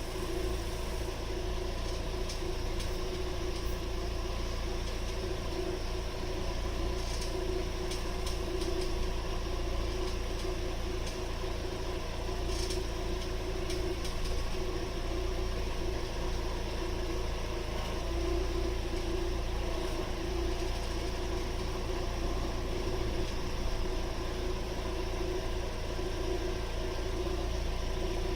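Proton Exora running steadily, with a few faint clicks from the right-wheel suspension on slight turns: the coilover spring is touching the car body, because its spring rubber is defective or was fitted backward.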